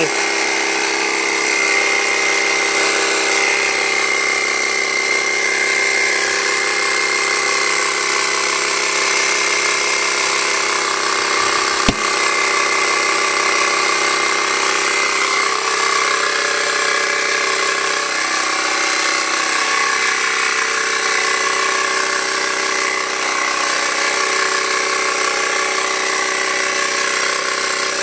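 Air compressor running steadily as it pumps air into a tire through the valve stem to reseat the bead. A single sharp crack comes about twelve seconds in.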